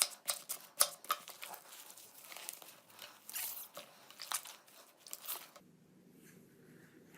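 Slime being squeezed and pressed by hand, giving a quick run of crisp crackles and pops. A little over five seconds in it cuts to softer, quieter handling sounds.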